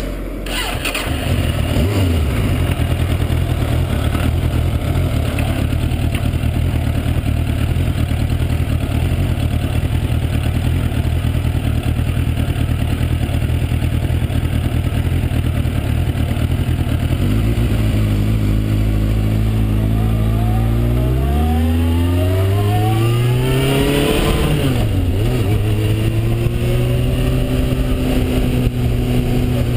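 Suzuki GSX-R750 motorcycle engine idling steadily, then revving as the bike pulls away a little over halfway through. The pitch climbs, drops briefly at a gear change, and holds steady at a higher pitch.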